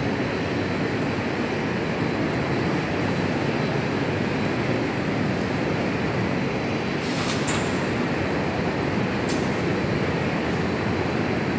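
Belt conveyor assembly line running: a steady, even rolling mechanical noise, with a few light clicks about seven and nine seconds in.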